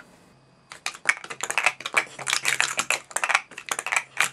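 Plastic sport-stacking cups clacking rapidly against each other and the mat as they are stacked up and down at speed, starting about two-thirds of a second in after a brief quiet moment.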